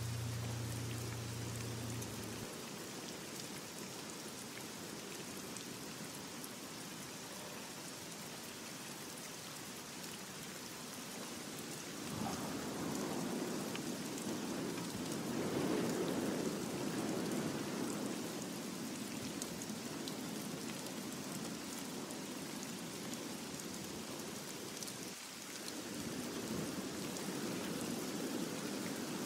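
Steady rain with a fine patter of drops, growing louder about halfway through and dipping briefly near the end. A held low note from the song dies away about two seconds in.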